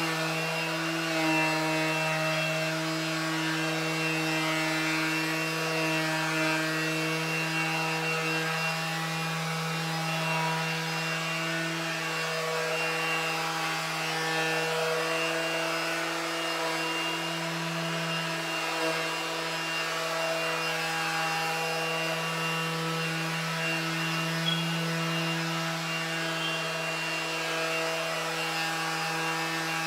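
Porter-Cable 20-volt cordless 5-inch random orbital palm sander running steadily at its single speed, buffing hard wax oil into maple stair treads: an even motor hum with the pad rubbing on the wood.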